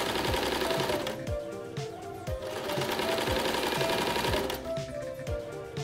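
Janome electric sewing machine stitching fleece, running in spurts with two short pauses. Background music with a steady beat plays under it.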